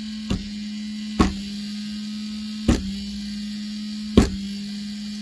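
A Duratool desoldering station's broken fan makes a steady buzzing hum. Four sharp knocks of percussive maintenance, the unit being struck to try to quiet the fan, land at intervals, and the last is the loudest.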